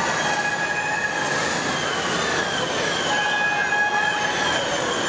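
Electric overhead crane carrying a lifted N700 series Shinkansen car body: a steady whine of several tones that come and go and bend slightly in pitch, over a continuous hum.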